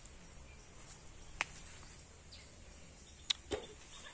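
Quiet woodland background with a few isolated sharp clicks: one about a second and a half in and two more a little after three seconds.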